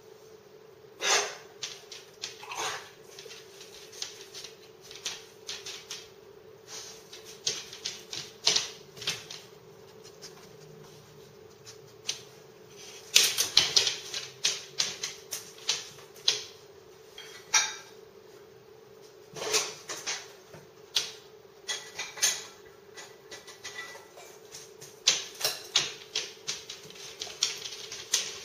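A dog's claws clicking and scrabbling on hard surfaces in irregular bursts of taps, thickest about halfway through.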